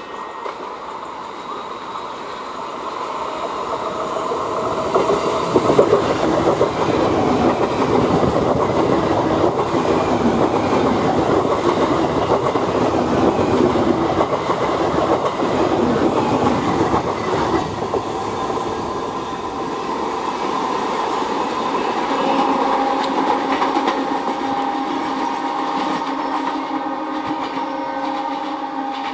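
ICF electric multiple unit (EMU) local train passing close by, its wheels clattering over the rail joints, swelling to its loudest in the middle as the coaches go past and then easing off. A steady pitched tone comes in over the last several seconds.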